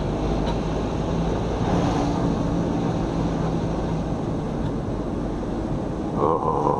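Car driving slowly, heard from inside the cabin: the engine running with a low drone and tyre noise on the road. A short, steady higher tone comes in near the end.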